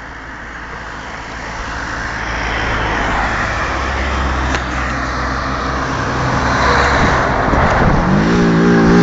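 A car approaching along the road, its engine and tyre noise growing steadily louder and peaking as it comes past near the end, where a rising engine note stands out.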